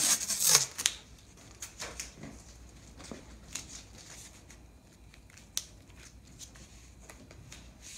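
Masking tape pulled off the roll with a loud rip in the first second, then quieter crinkling and rustling as the strip is laid down and pressed on, with a sharp tick about five and a half seconds in.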